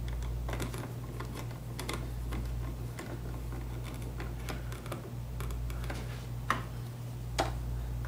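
Small, irregular clicks and taps from a replacement light switch and its stiff wires being handled and pushed into a wall box, with two sharper clicks near the end, over a steady low hum.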